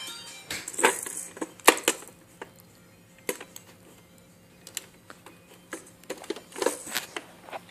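Irregular hard clicks and knocks, about eight of them spread unevenly, from a ball and a plastic toy gumball machine being handled, over a faint steady hum.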